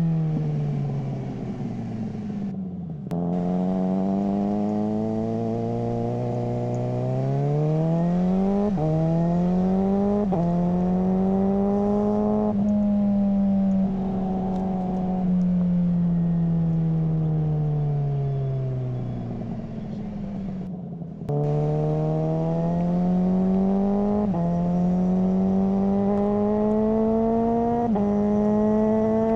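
Suzuki GSR600 inline-four engine running through a GPR Ghost aftermarket exhaust while ridden: the pitch falls away as it slows, then climbs through several upshifts, each change dropping the pitch before it rises again. It slows once more near the middle, then pulls up through the gears again toward the end.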